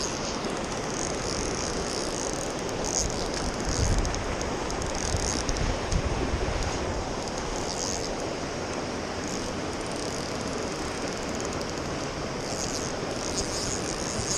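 Fast shallow river water rushing over rapids, a steady hiss, with a couple of low bumps about four and six seconds in.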